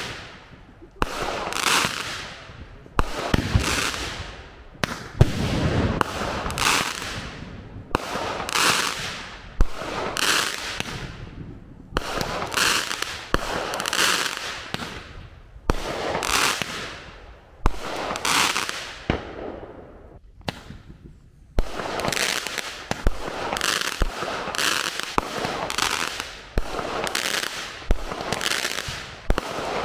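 Small consumer firework cakes firing shot after shot: a sharp report about once a second, each followed by a hiss that fades out, with a brief pause about two-thirds of the way through.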